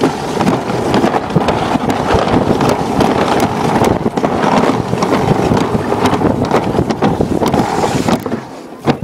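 Alpine slide sled running down the track: a loud continuous rattling rumble full of clicks, with wind buffeting the microphone, dropping off sharply near the end.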